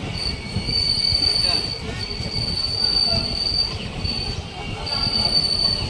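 Passenger train's wheels squealing against the rails: a high, steady squeal that breaks off and comes back several times, over the low rumble of the rolling coaches.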